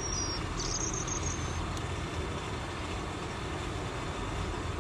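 Steady low rumble of road traffic from a busy road close by.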